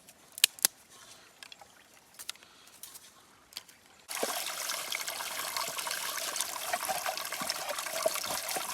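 Mountain water trickling and splashing. It starts suddenly about four seconds in and runs on steadily, after a few light clicks.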